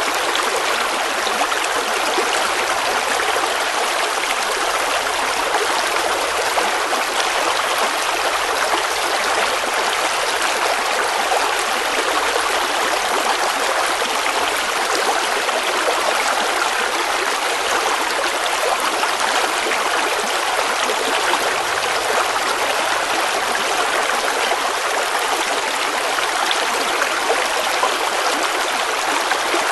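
River water flowing and rushing steadily over stones, an even continuous splashing with no breaks.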